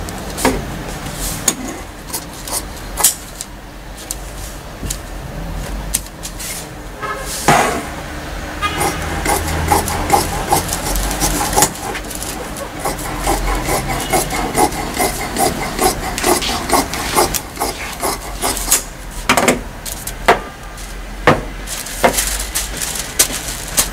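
Large tailor's shears cutting through doubled knit fabric: repeated snips with the fabric and paper pattern rustling and sliding on the table.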